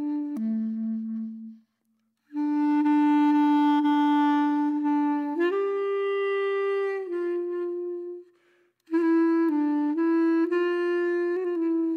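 Background music: a slow solo melody of long held notes, breaking off briefly twice.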